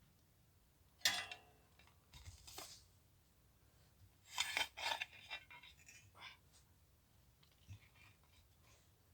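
Metal being handled: a sharp clank with a brief ring about a second in, then a cluster of clinks and clattering knocks a few seconds later and a few light clicks near the end.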